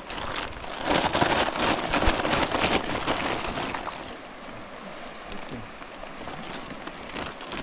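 Fast-flowing river rushing steadily, with a louder crackling rustle from about one to three seconds in.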